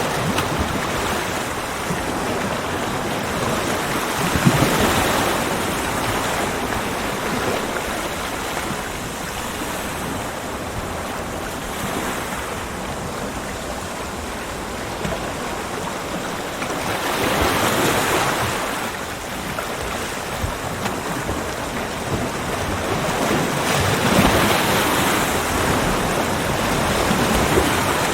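Ocean waves breaking and washing on a beach, a steady rush of surf that swells louder as a wave comes in, about three times.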